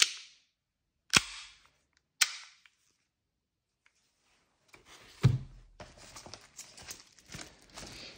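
Tokyo Marui Detonics .45 airsoft pistol working its action: three sharp clacks about a second apart, each with a short fading tail. They are followed, from about five seconds in, by softer, irregular handling clicks and rustling.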